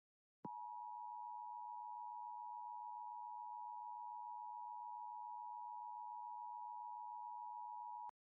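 Emergency Alert System two-tone attention signal: a steady electronic alarm of two close pitches sounding together. It starts about half a second in and cuts off abruptly near the end, announcing that an alert message is about to be read.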